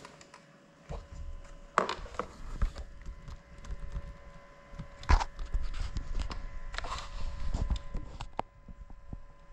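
Small FPV drone being handled by hand: irregular knocks and bumps with low rumble, the loudest about five seconds in, over a faint steady hum.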